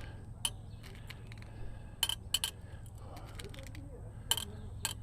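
A series of sharp, light metallic clicks and clinks, about six, three of them in quick succession about two seconds in, with faint talk in the background.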